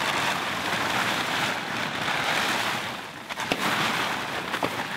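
Black plastic tarp rustling and crinkling as it is dragged and pulled over a stack of firewood. The rustle eases briefly about three seconds in, then picks up again.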